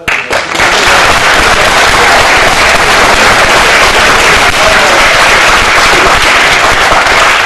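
Audience applauding: loud, dense clapping of many hands that breaks out suddenly and holds steady.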